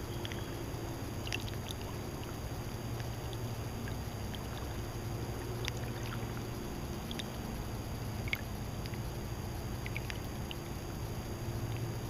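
Small lake waves lapping at the shore, a steady low wash with scattered light splashes and drips.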